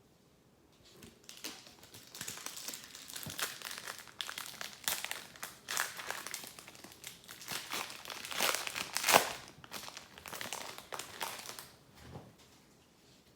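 Foil wrapper of a hockey card pack crinkling as it is handled, in irregular crackly bursts for about ten seconds, sharpest about nine seconds in.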